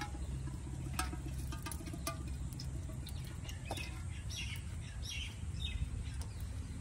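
Birds chirping in the background, several short chirps about two-thirds of the way through, over a steady low rumble with a few sharp clicks.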